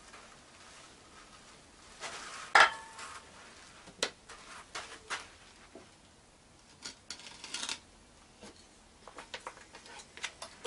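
Metal cup and plastic bucket knocking and clinking as they are handled. There is one sharp metallic clank with a brief ring about two and a half seconds in, and lighter knocks and rattles follow.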